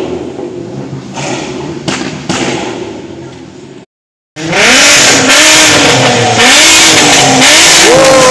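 A car rolling through a parking lot, with a few knocks. After a cut, a lowered Toyota 86-type sports coupe's flat-four engine is revved hard as it pulls away, very loud, its pitch rising and falling several times.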